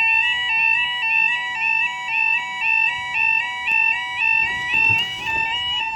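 Level crossing warning alarm sounding: an electronic two-tone yodel that steps back and forth between a lower and a higher pitch a few times a second, warning that the barriers are coming down for a train.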